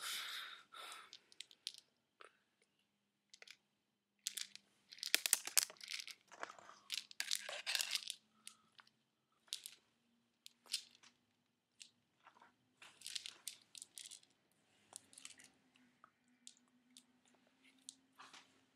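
Faint scattered crackles and rustles from handling a small bottle close to the microphone while pouring and tasting from it, in a cluster about four to eight seconds in and another around thirteen seconds, over a faint steady low hum.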